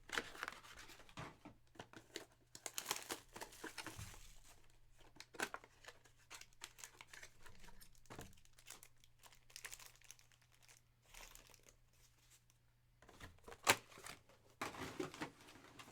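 Plastic wrapping crinkling and tearing as trading-card boxes and packs are opened, in irregular rustling bursts, with one sharp snap near the end.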